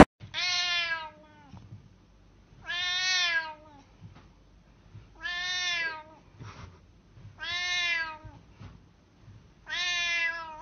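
Domestic cat meowing five times, drawn-out meows each just under a second long and about two and a half seconds apart, while a hand pats its head.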